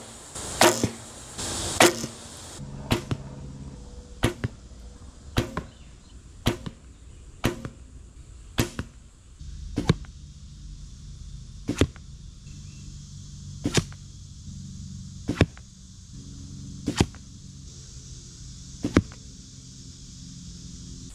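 Arrows shot from a recurve bow thwacking one after another into a 3D boar target, about fourteen sharp hits. They come about once a second at first, then about every two seconds.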